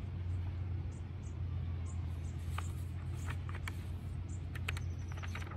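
Outdoor background with a steady low rumble. From about halfway in come scattered short, sharp high chirps and clicks while a picture book's pages are turned.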